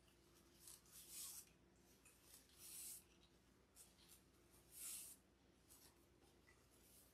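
Faint rustling and swishing of fabric ribbon being gathered and pulled into a bow, in short bursts, the loudest about one, three and five seconds in.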